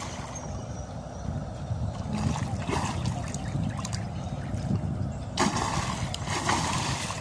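River water sloshing and lapping around swimmers moving face-down at the surface, with a louder splash of kicking about five seconds in.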